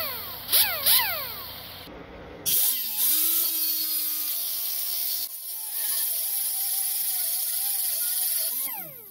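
Pneumatic cut-off tool with a small abrasive disc, cutting the exhaust clamp bolt. It gives a few short bursts that spin down at the start, then runs up to speed about two and a half seconds in. Its pitch wavers as the disc cuts the metal, and it spins down near the end, with a hiss of air over it throughout.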